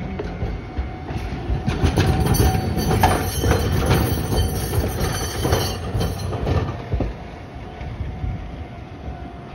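A Hankai Tramway streetcar passing close by, its wheels knocking over the rail joints with a high metallic squeal. It is loudest from about two to six seconds in, then fades.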